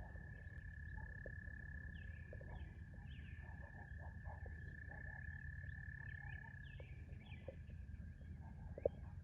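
A frog's long, steady trill on one high note, held for about seven seconds and then fading, with short bird chirps above it and a low rumble underneath.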